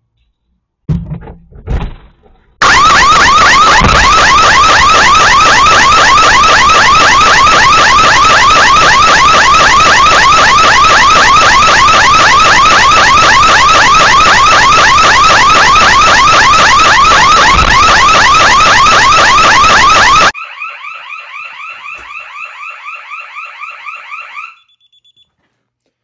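Security intrusion alarm siren sounding with a very loud, fast warbling electronic tone, tripped by a door being opened while the system was still armed. It follows a few brief knocks, drops much quieter about twenty seconds in, and stops shortly before the end.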